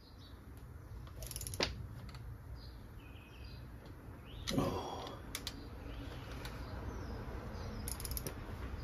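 Hand tools working bolts on a Honda C70 engine: scattered sharp metal clicks of a socket ratchet and tool knocks, in a small cluster about a second and a half in, a louder knock midway and another cluster near the end, over a steady low hum.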